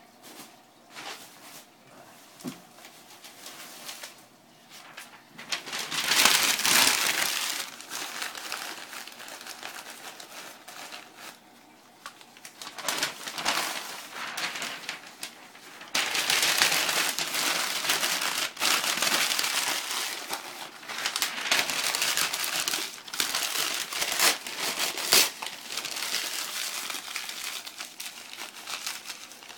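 Newspaper being crumpled and stuffed into a styrofoam-lined shipping box as packing, in crinkling bursts, the loudest about six seconds in and again from about sixteen seconds on.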